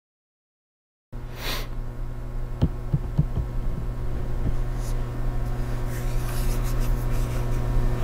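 Dead silence for about a second, then a steady electrical hum over low room noise, with a few small clicks and a short rustle.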